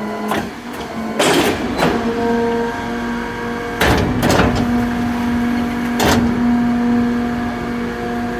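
Garbage truck's compactor running a compaction cycle: a steady whine with sharp metal clanks about a second in, twice around four seconds, and again around six seconds.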